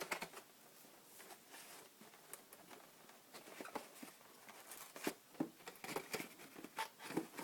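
Packaging of a boxed webcam being handled and worked open by hand: scattered light clicks, taps and rustles, sparse at first and busier in the second half.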